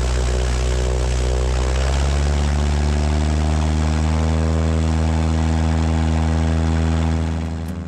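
Glasair Sportsman's single piston engine and propeller at full takeoff power, running loud and steady, fading out near the end.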